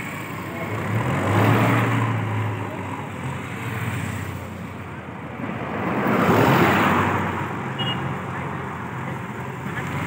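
Diesel engine of a JCB 3DX backhoe loader running with a steady low hum, swelling louder twice, about a second and a half in and again around six and a half seconds.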